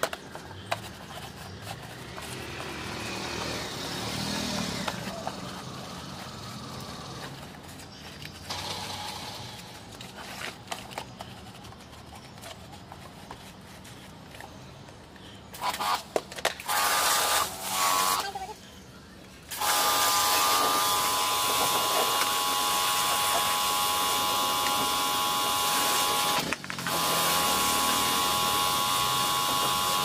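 A small portable electric pressure washer is triggered in a few short bursts about halfway in, then runs steadily: a motor-pump whine over the hiss of the water jet spraying a plastic washing machine panel, briefly cutting out near the end. Before it there are quieter handling and scrubbing sounds.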